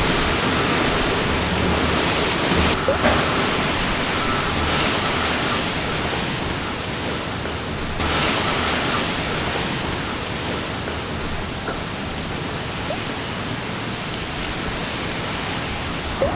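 Typhoon-force wind blowing hard, a loud steady rush of noise that shifts abruptly twice.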